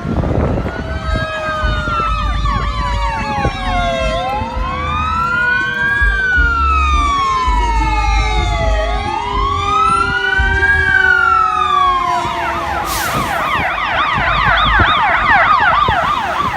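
Emergency vehicle sirens, more than one at once, sounding a slow rising-and-falling wail. About twelve seconds in, a siren switches to a fast yelp. Wind rumbles on the microphone underneath.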